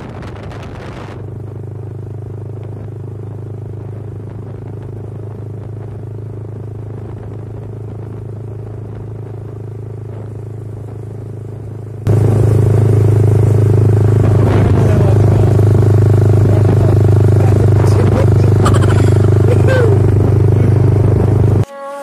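Motorcycle engine running at a steady speed, a steady drone. About halfway through it becomes abruptly much louder and noisier, and it cuts off just before the end.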